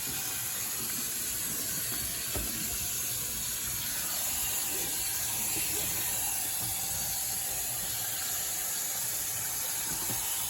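Kitchen tap running steadily into a sink, a continuous hiss of water.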